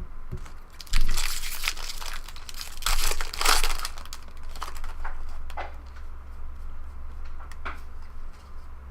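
A foil trading-card pack wrapper being torn and crinkled: two loud crinkling rustles about one and three seconds in, then light clicks and rustles as the cards are handled.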